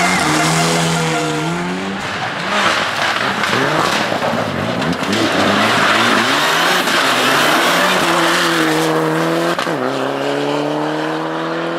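Mitsubishi Lancer Evolution rally car's turbocharged four-cylinder engine revving hard, its pitch rising and falling with throttle and gear changes, under a loud rush of tyre and gravel noise in the middle. Near the end the engine pulls up steadily in pitch as the car accelerates.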